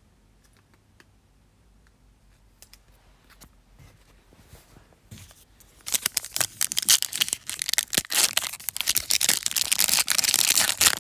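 Panini NBA Hoops Premium Stock foil card-pack wrapper being torn open and crinkled by hand. It starts about six seconds in, loud and crackling, after a few seconds of near quiet with faint light clicks.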